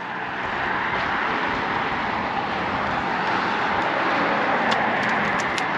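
Steady traffic noise from cars passing on a highway bridge, a rushing tyre hiss that swells slightly midway, with a few light clicks near the end.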